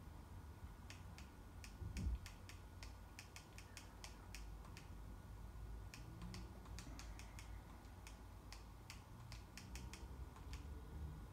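Faint, sharp clicks of controller buttons being pressed in quick, irregular runs, several a second at times, with a low thump about two seconds in.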